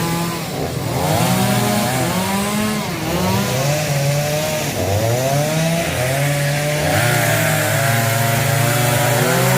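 Two-stroke chainsaw cutting up a fallen tree, its engine pitch dropping under load and climbing back several times as it is throttled.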